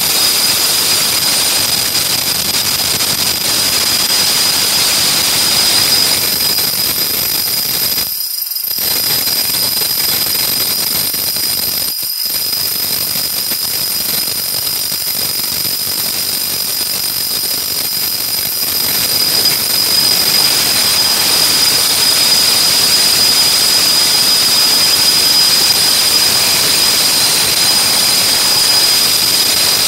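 Bosch RH540M SDS-max rotary hammer's brushed motor running at speed with its rear brush housing open, a loud steady whir with a high whine. The sound dips briefly twice, about eight and twelve seconds in.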